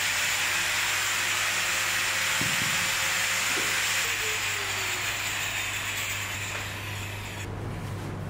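Small handheld electric power tool, a grinder or rotary tool, running: a steady high whine over a loud hiss, starting suddenly and cutting off about seven and a half seconds in.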